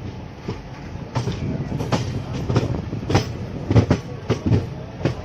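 Train wheels clacking irregularly over rail joints and points as rolling stock moves slowly through a railway yard, over a steady low rumble. The loudest knocks come a little past the middle.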